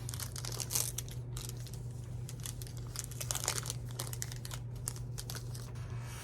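Foil trading-card pack wrapper crinkling and tearing as it is opened by hand: a run of irregular crackles over a steady low hum.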